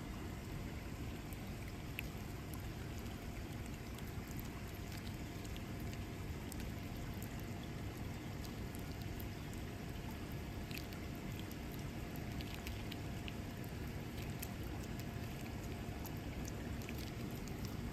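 Wet ambience after heavy rain: a steady hiss of dripping and running rainwater, with many small scattered drips and ticks.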